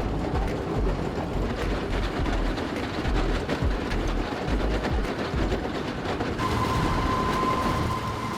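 Heavy machinery running with a low rumble and a rattling clatter. About six seconds in, the sound changes and a steady high tone sets in.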